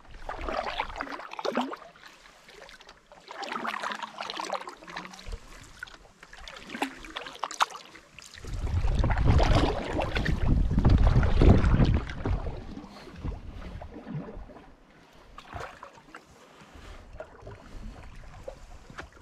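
Open canoe being paddled with a wooden single-bladed paddle: repeated splashing, washing strokes of the blade through choppy water, about one every two to three seconds. For a few seconds in the middle a loud low rumble of wind on the microphone covers them.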